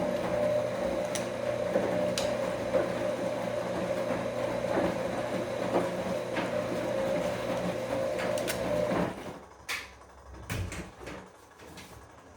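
Bosch Komfort-Klasse washing machine turning its drum mid-wash: a steady motor hum with scattered clicks and knocks from the tumbling load. The hum stops suddenly about nine seconds in, as the drum pauses, leaving a few faint knocks.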